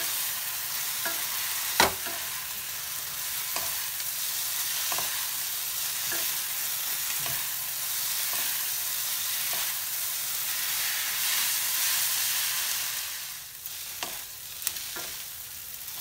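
Maggi noodles sizzling in a white-lined kadhai as they are stirred and tossed with a wooden spatula, which knocks against the pan about once a second. The sharpest knock comes just before two seconds in, and the sizzling eases a little near the end.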